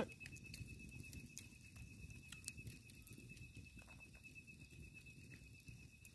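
Quiet night ambience: a steady high-pitched insect trill, with faint scattered clicks and rustles from hands handling food on banana leaves.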